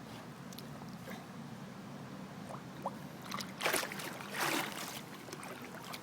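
Ghost carp splashing in the water twice, a little after halfway through, as it is let go.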